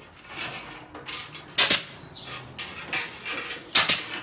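Kamsin K-SC7C 15-gauge pneumatic C-ring gun firing twice, about two seconds apart, clinching steel C-rings onto chicken wire. Light metallic rattling of the wire being handled between the shots.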